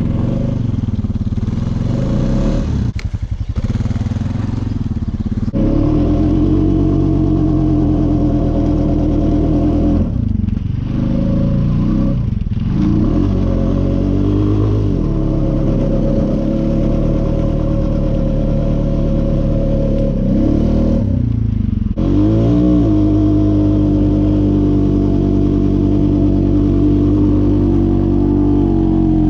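Four-wheeler (ATV) engine running hard under load in deep snow, its revs dropping and climbing again several times as the throttle is worked.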